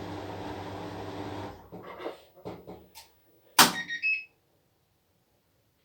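Washing machine running with a steady hum that stops about one and a half seconds in, followed by a few clicks and knocks and one louder, sharp knock with a brief ring after it.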